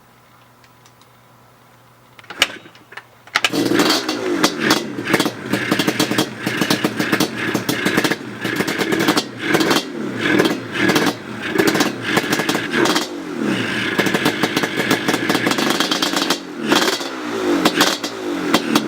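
Yamaha Banshee's 350cc twin-cylinder two-stroke engine, fitted with Toomey T6 expansion-chamber pipes, pod filters and freshly rejetted carbs, starting: a brief sputter a couple of seconds in, then it fires up about three seconds in and is revved up and down in repeated throttle blips.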